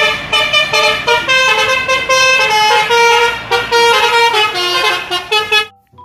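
An Indonesian 'telolet' bus horn, the multi-tone musical horn, playing a quick tune of changing notes. It is loud and cuts off abruptly shortly before the end.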